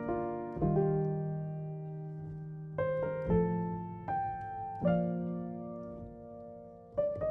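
Background piano music: slow, soft chords struck every second or so, each left to ring and fade.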